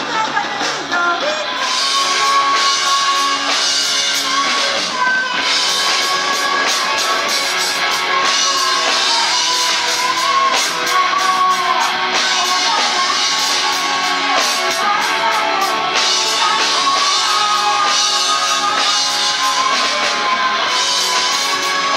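Live rock band playing: electric guitars, bass and a drum kit with cymbals, with a singer's voice over the band.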